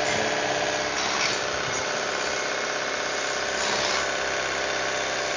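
A cordless pressure washer running steadily: its electric motor and pump drone while the water jet hisses, with no let-up.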